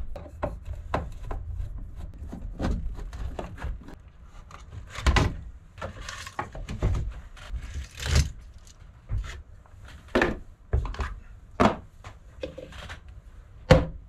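A wooden electrical panel board being taken apart by hand: a screwdriver at its screws, then a switch plate and small meters lifted out and set down. The result is irregular clicks, taps and knocks.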